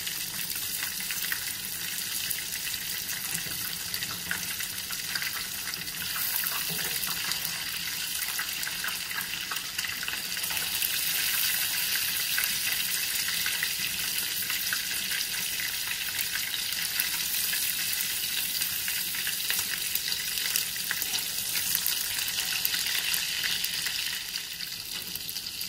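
Minced-beef patties frying in hot oil in a nonstick frying pan: a steady sizzle with fine crackling, growing a little louder about ten seconds in.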